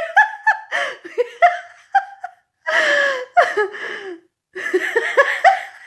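A person laughing in short, high-pitched bursts broken by gasping breaths, the pitch sliding up and down.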